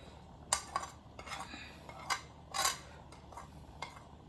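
A spoon clinking and tapping against small dishes and a bowl as measured spices and cornflour are added to raw chicken: several light, separate clinks.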